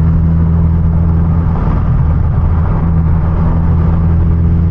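Hyundai Genesis Coupe 2.0T's turbocharged four-cylinder engine running at steady highway cruise, a steady low drone mixed with road noise.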